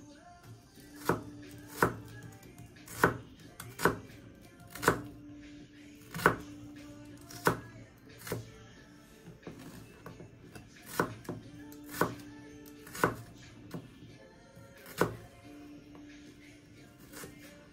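Kitchen knife slicing a shallot on a plastic cutting board: about a dozen sharp knocks of the blade on the board, roughly one a second, with a pause of a couple of seconds in the middle. Soft background music underneath.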